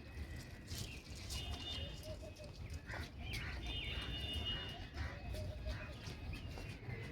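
Birds calling outdoors: two short, high-pitched calls, one about a second and a half in and another near four seconds, over a steady low rumble.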